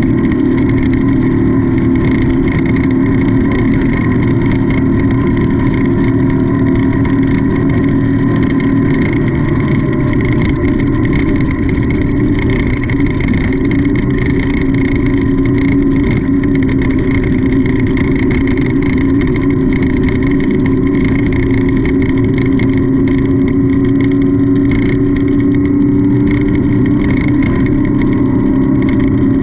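Off-road race car's engine running hard at speed, heard from on board: a loud, steady drone whose pitch rises and falls slightly.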